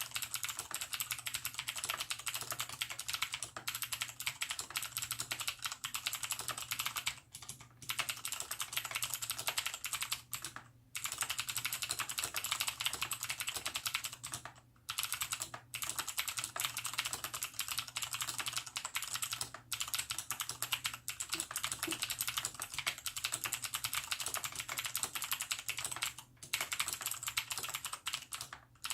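Continuous fast typing on a Cooler Master QuickFire XTi mechanical keyboard with clicky Cherry MX Blue switches, its sliders and stabilizers lubed and the case sound-dampened. A dense stream of key clicks, broken by a few short pauses of under a second.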